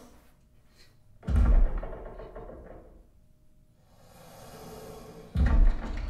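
Two sudden deep booming hits about four seconds apart, each heavy in the bass and dying away over about a second, from a film soundtrack played over a home-theater system with twin subwoofers and picked up in the room.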